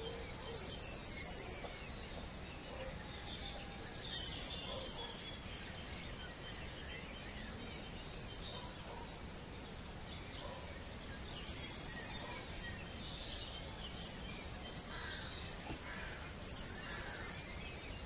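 A songbird singing the same short song four times: a high note followed by a fast, even trill about a second long. A fainter chorus of other birds sings behind it.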